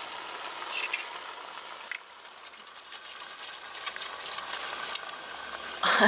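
Ham and eggs frying in a pan: a steady sizzle with scattered crackles, dropping a little in level about two seconds in.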